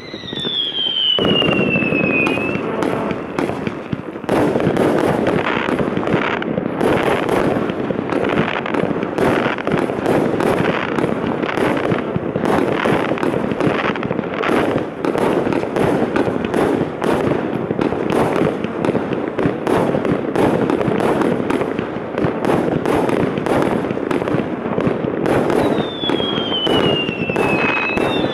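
Ghettoblaster 144-shot (4×36) fireworks combination cake firing, rapid shots launching one after another with bursts and dense crackling, without a break. A whistle falling in pitch sounds at the start and again near the end.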